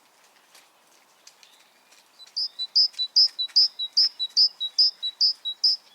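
Great tit singing its two-note 'teacher-teacher' song: a clear high note dropping to a lower one, repeated about nine times at an even, quick pace, starting about two seconds in.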